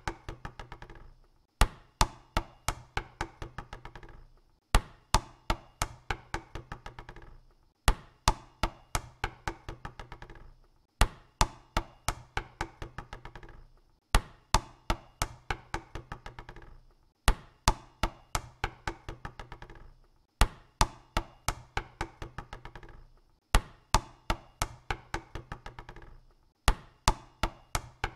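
A basketball dropped on a hard court and bouncing to rest, the bounces coming quicker and softer until it settles. The drop repeats about every three seconds.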